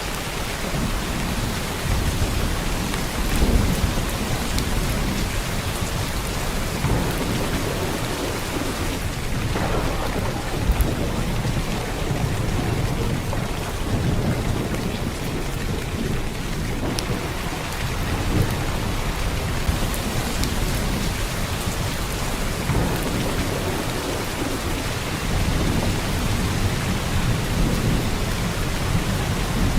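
Heavy downpour of rain, a dense steady hiss, with low rumbles swelling and fading underneath every few seconds.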